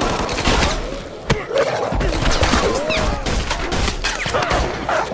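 Action-film fight soundtrack: gunshots and hard impact hits at irregular intervals, with cries and yelps between them over a low rumble.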